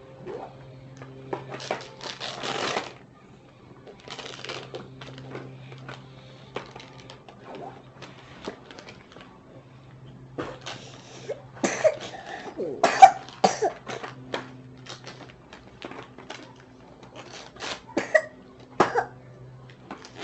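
Coughing from someone who is sick, in several bouts: about two seconds in, a harder run around twelve to fourteen seconds in, and again near eighteen seconds. A faint steady low hum runs underneath.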